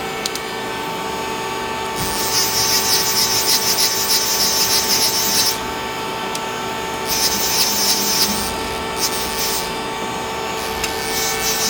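Ace LT-20 CNC lathe running with a steady hum, its turret slide traversing along the axes in several spells of hissing, rubbing noise a few seconds long.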